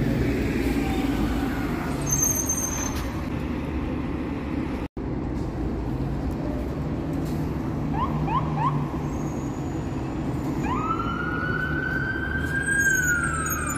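City traffic with buses running past, then an emergency vehicle siren: three short rising chirps about eight seconds in, followed by a wail that rises, holds, and starts to fall near the end.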